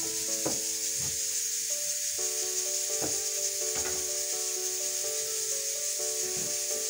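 Background music of slow held notes over a steady high hiss, with soft knocks and cloth rubbing as oranges are dried with a towel.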